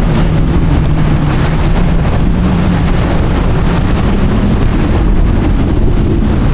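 Steady wind buffeting the microphone, mixed with surf washing onto a sandy beach.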